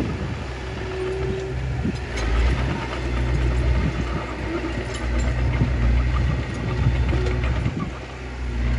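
Small crawler bulldozer's diesel engine running under load as it pushes soil, its drone swelling and easing every second or two, with scattered short clanks.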